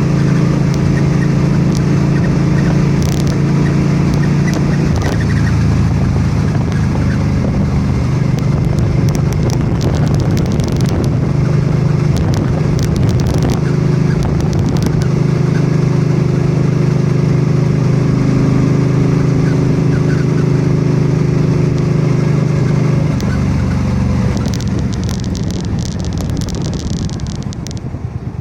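2006 Suzuki C50's V-twin engine running while the bike is ridden at road speed, with steady wind and road noise. The engine note changes about five seconds in and again near the end, and the sound eases off just before the end.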